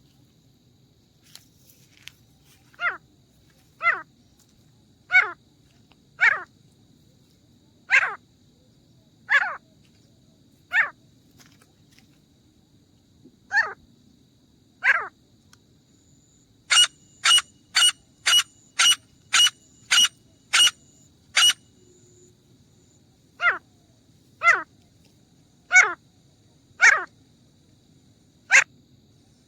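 Grey francolin calling: loud, short notes repeated about once a second, breaking into a quicker run of about nine sharper notes in the middle before slowing again.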